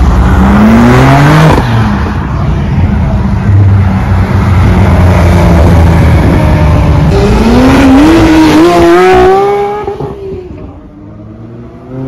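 High-performance car engines accelerating hard away, one after another: a rising rev early on, a loud steady engine note through the middle, then another hard pull climbing in pitch in a few steps before fading into the distance.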